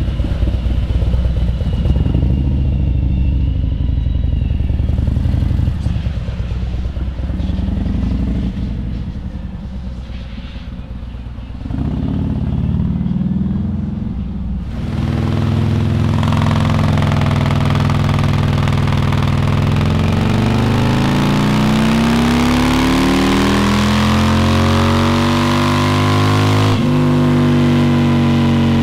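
Harley-Davidson Street Glide with a freshly installed Screamin' Eagle 131 Stage 4 V-twin engine, first ridden off with uneven revving. After a sudden change about halfway, it runs on a dyno, the engine note climbing steadily in pitch as the revs build, then holding level near the end.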